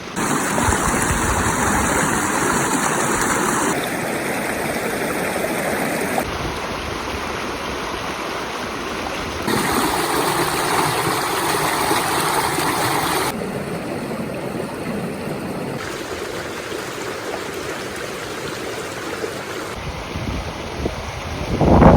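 Mountain valley stream rushing over rocks, a steady rush of water whose loudness and tone change abruptly every few seconds as one short recording gives way to the next.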